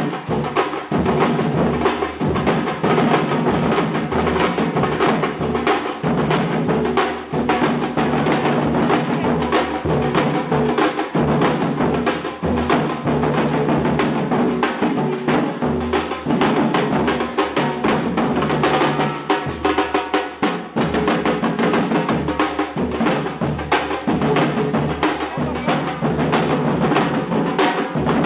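Drumming played by children: a percussion group keeping up a steady, fast beat of snare and bass drums with sharp wood-block-like strokes.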